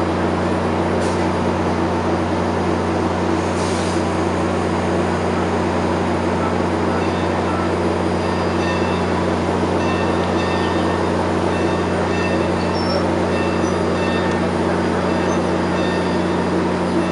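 Steady low mechanical hum from the stationary excursion train, machinery running at an even idle with no change in pitch or level.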